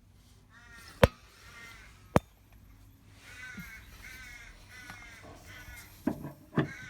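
Crows cawing repeatedly in a series of harsh calls, with two sharp knocks about a second apart early on and a couple of duller thuds near the end.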